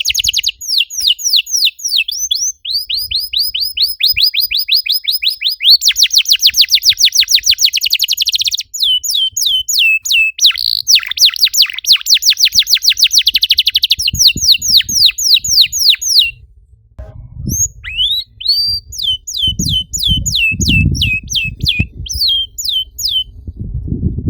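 Domestic canary singing long rolling trills: runs of fast, evenly repeated downward-sweeping notes at changing speeds, with a short break about two-thirds of the way through. In the later part an irregular low thumping sounds underneath.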